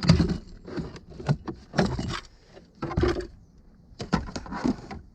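Irregular clicks, knocks and clatter of plastic dashboard trim being worked loose: a glove box or small dash compartment being pulled out of a car's dashboard. About eight to ten separate knocks come at uneven intervals.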